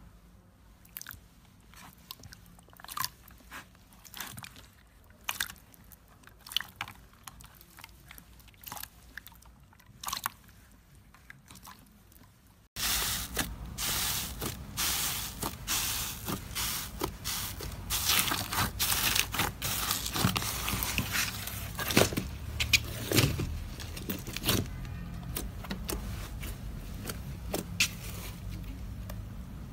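Hands pressing and poking slime. First clear slime gives off sparse, soft clicks and pops; about halfway in a thick, bubbly slime takes over, crackling and popping densely and much louder as the air bubbles in it burst under the fingers.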